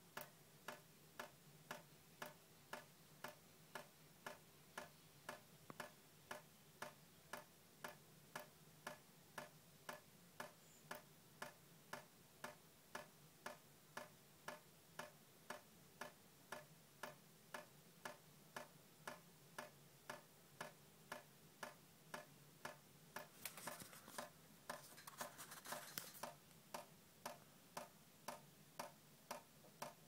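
Water dripping from a leaking kitchen tap: faint, evenly spaced drip ticks, a little under two a second. About three-quarters of the way through, a couple of seconds of hiss sound under the drips.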